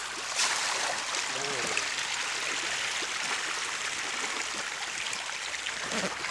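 Pond water splashing and churning at the surface in a steady rush, with two sharper splashes in the first half second.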